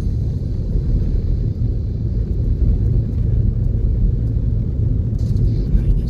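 Steady low rumble of a vehicle driving on a snow-covered road, heard from inside the cabin.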